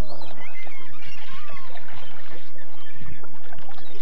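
Sounds from a small fishing boat while a fish is being played on the line: knocks and water noise, with birds calling.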